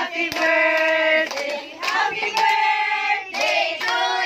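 A group of voices singing a birthday song together in long, held notes, with a few scattered hand claps.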